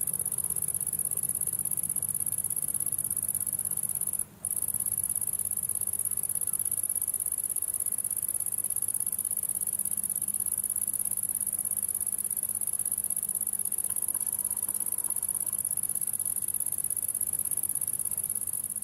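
Insect stridulation: a continuous high-pitched buzz that breaks off briefly about four seconds in and then carries on.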